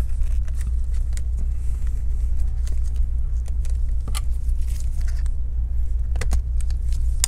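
Steady low hum throughout, with scattered light clicks and taps as gloved hands and a plastic prying tool work the CPU fan's small wire connector loose on a laptop motherboard.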